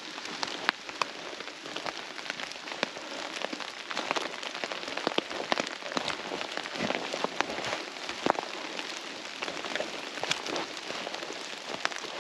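Rain falling on a stretched tarp and the leaf-covered forest floor: a steady hiss with many irregular sharp taps of drops.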